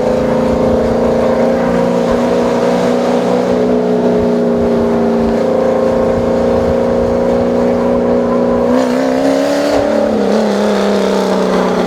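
Race vehicle engine running at steady high revs, its note holding almost level and sagging slightly, then wavering and shifting pitch near the end.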